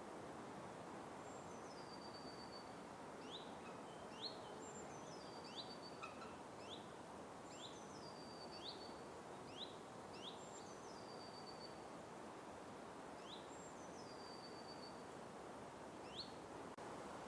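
Forest ambience: a steady soft hiss with birds calling over it, a high call that drops in pitch and holds briefly, repeated every few seconds, and short upward-sweeping chirps.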